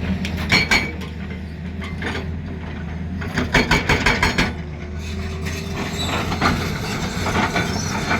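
Excavator's diesel engine running steadily, with bursts of rapid metallic clanking about half a second in and again from about three and a half to four and a half seconds in.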